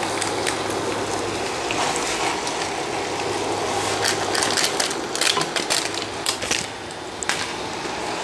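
Sweetened rice frying gently in a nonstick pan, a steady soft sizzle under a low hum. A few light clicks and taps sound from about four to six and a half seconds in, as powdered milk is added and the spoon touches the pan.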